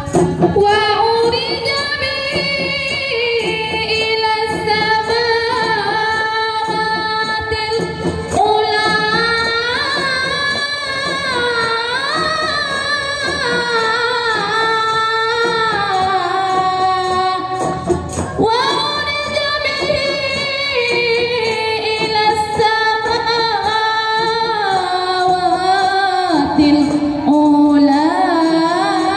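A woman singing a sholawat melody into a microphone, a single voice of long held notes with winding ornaments and a short breath break about two-thirds of the way through. Light rebana frame drums and tambourine jingles keep time faintly beneath the voice.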